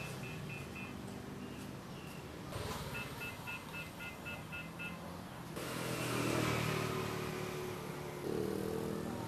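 Short runs of rapid electronic beeping, about four beeps a second: one run dies away just under a second in, and another runs from about three seconds to five seconds. A steady low hum lies underneath, and a rushing noise swells after the beeping stops.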